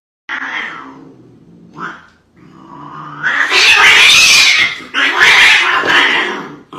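Cat yowling: two long, loud, wavering calls, one right after the other, starting about three seconds in, typical of a cat squaring off with another animal.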